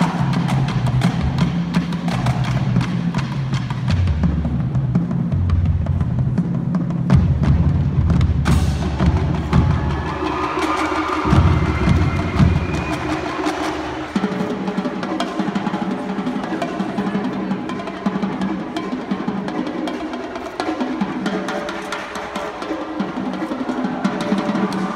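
Marching band playing live, led by the drumline's snare and bass drums, with held low notes underneath.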